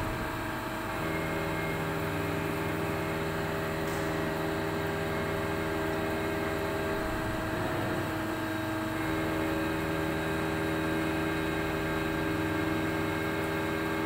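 Spinner TC77-SMCY CNC lathe running under flood coolant: a steady hiss of coolant spray inside the enclosure with a steady multi-tone motor whine that comes in about a second in, drops out for about two seconds midway, then returns.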